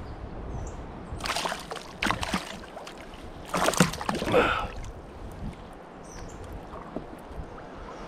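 Hooked smallmouth bass thrashing at the surface beside a kayak, making several splashes in quick succession over about three seconds as it is brought to hand.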